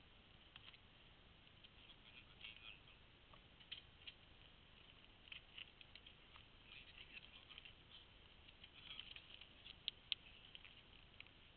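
Faint, scattered rustling and small clicks from hands handling bicycle parts during a puncture repair, with two sharper ticks about ten seconds in.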